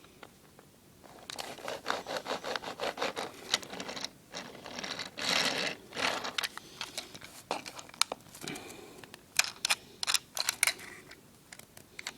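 Small plastic clicks and scrapes as a Transformers Deluxe Class Ratchet figure is handled and its parts adjusted, starting about a second in.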